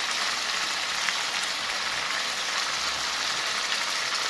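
Chicken gizzards frying in a stainless steel pan: a steady hissing sizzle with small crackles.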